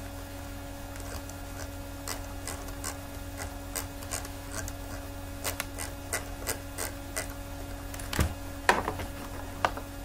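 Irregular light clicks of a computer mouse as PDF pages are flipped, over a steady low electrical hum.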